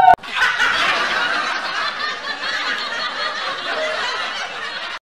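A group of women laughing together, many voices over one another, cutting off abruptly near the end.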